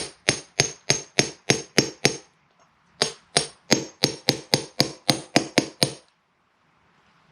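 Steady, light hammer taps, about three a second, driving a bearing into a 54mm centrifugal clutch bell. Each strike gives a short metallic ring. The tapping pauses briefly about two seconds in, resumes, and stops about six seconds in.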